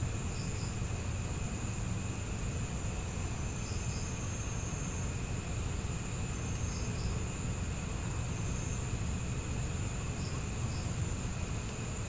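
Evening chorus of insects trilling steadily at several high pitches, over a low background rumble. A short double chirp sounds about every three seconds.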